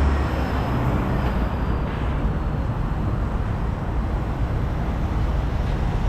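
Steady street traffic noise: vehicles running past as a continuous low rumble.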